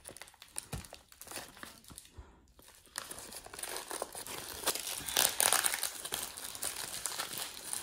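Brown paper gift wrapping being torn and crumpled by hand. It is faint scratching and picking for the first few seconds, then loud, continuous crinkling and tearing from about three seconds in.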